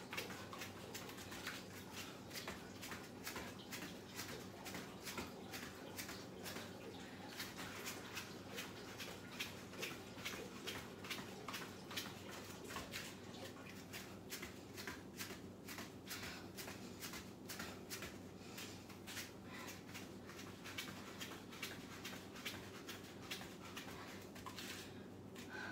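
Bare feet tapping on a yoga mat during fast cross-body mountain climbers: a faint, quick, steady patter of several taps a second.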